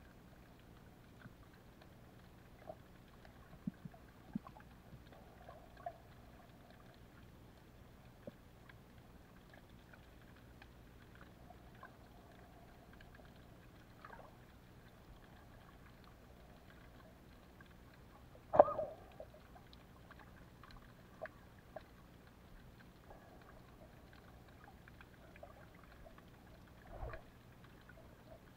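Underwater ambience over a rocky seabed: a faint steady hum and hiss with scattered small clicks and crackles, and one brief louder burst about two-thirds of the way in, with a smaller one near the end.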